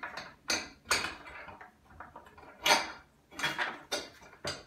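Bolt, spacer and brackets clinking and knocking against each other and the float as a half-inch bolt is pushed up through and fitted. A handful of sharp clicks, the loudest about two and a half seconds in.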